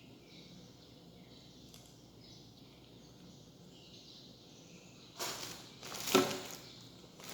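Faint chirping in the background for about five seconds. Then a loud rustling clatter starts suddenly, with a sharp knock about a second later, and fades.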